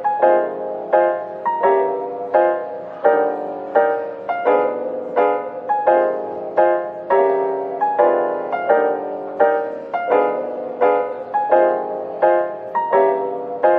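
Background piano music: gentle, evenly paced notes struck about one and a half times a second, each ringing out and fading.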